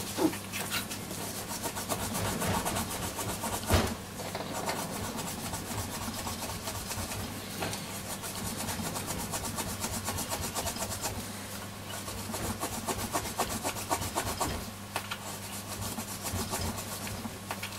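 Brasso wadding rubbed briskly back and forth over tarnished aluminium trim, a continuous scratchy rubbing made of rapid short strokes, with a single knock about four seconds in.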